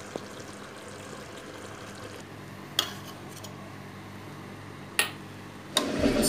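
A metal spoon knocking sharply against a steel cooking pot, two loud clicks about two seconds apart, while half-cooked basmati rice is spooned onto chicken curry, over a steady low hum. A louder, fuller sound comes in just before the end.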